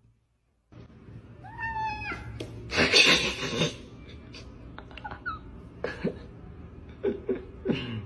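Domestic cats calling to each other: a meow about a second and a half in, a loud harsh noise about a second later, then a run of short calls, the last one sliding down in pitch.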